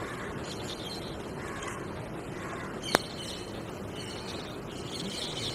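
Outdoor background noise with crows cawing and smaller birds chirping, the chirping stronger near the end. A single sharp click about three seconds in.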